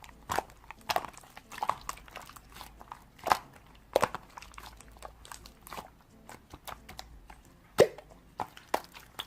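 Irregular sharp clicks and crunchy taps close to the microphone, a few of them louder, about three and four seconds in and again near the end.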